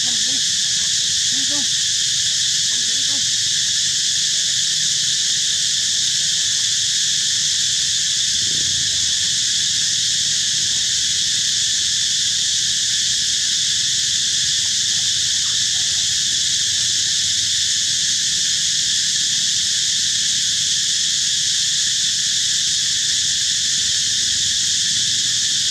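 A steady, high-pitched insect chorus, loud and unchanging.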